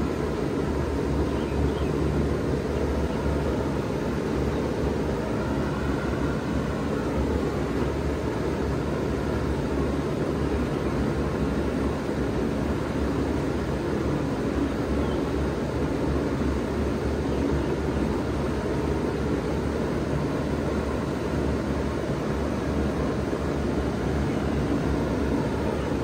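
1996 Bard 3-ton wall-hung heat pump running steadily in cooling mode: a constant low hum from the compressor under the even rush of the condenser fan.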